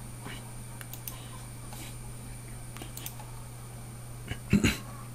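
Scattered faint clicks and taps from someone working at a computer, over a steady low electrical hum, with one brief louder bump near the end.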